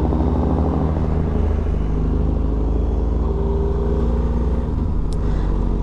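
BMW R1250GS motorcycle's boxer-twin engine running under way, with wind hiss over it; the engine note shifts about a second in and again near the end.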